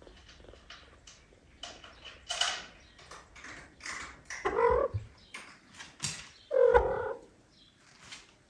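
A cat meowing twice, short calls about two seconds apart, among scattered light rustling and clicking.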